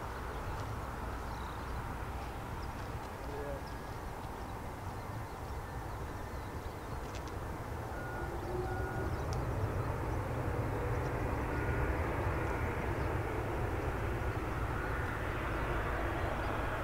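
Airbus A320neo jet airliner landing and rolling out on the runway, heard at a distance as a steady engine and runway rumble that grows louder about halfway through as the aircraft rolls toward the listener.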